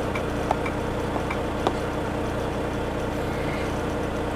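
Truck engine idling steadily, heard inside the cab, with a few light taps of a stylus on a tablet touchscreen.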